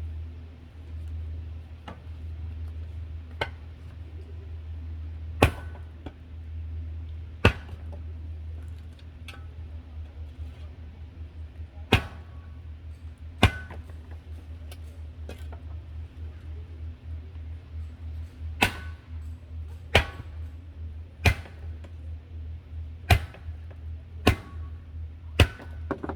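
Coffee beans cracking during roasting: a dozen or so sharp pops at irregular intervals over a steady low hum.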